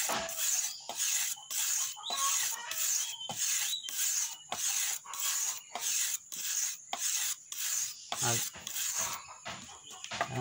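Kithul palm-tapping knife being sharpened on a whetstone: steady back-and-forth scraping strokes of the blade on the stone, about two a second, stopping near the end.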